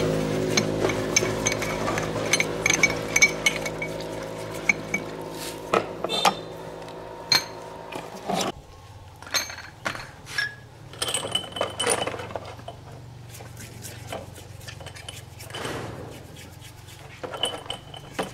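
Steel bearing races and rollers clinking against each other and the tub as they are washed by hand in a plastic tub of liquid, in a string of separate small metallic clinks with some light splashing. A steady hum fades under the first part and cuts off about eight seconds in.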